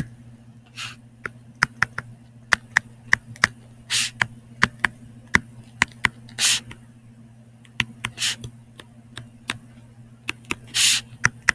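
Stylus tip tapping and sliding on a touchscreen during handwriting: many short sharp clicks with a few brief scratchy strokes, over a faint steady hum.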